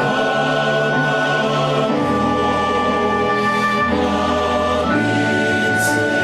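Choral music: voices singing held chords over a bass line whose note changes every second or so, with a brief high hiss near the end.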